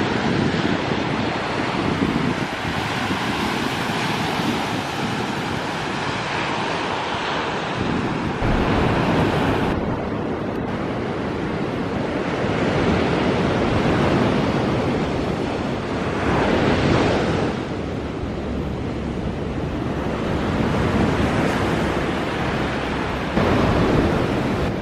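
Surf washing onto a sandy beach, a continuous rush with breakers swelling louder every few seconds; the sea is still rough after a typhoon.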